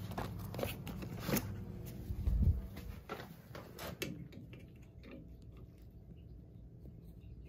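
Handling noise: clicks, knocks and clatter of tools and fittings, with one heavy low thump about two and a half seconds in. The last few seconds are quieter, with only a faint steady hum.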